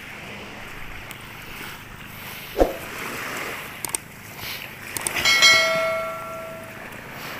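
A sharp knock, then a metal pail clanks and rings for about a second and a half as a fisherman handles fish in it, over steady surf and wind.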